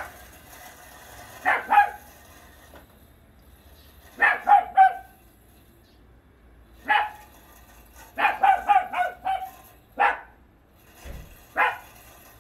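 Italian greyhound barking in short, high-pitched barks. The barks come singly and in quick runs, the longest a rapid string of about six a little past eight seconds in.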